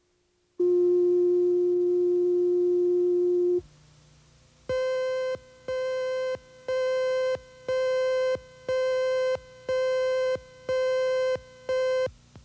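Videotape countdown leader: a steady tone lasting about three seconds, then eight short beeps, one per second and higher in pitch than the tone, counting down to the start of the program.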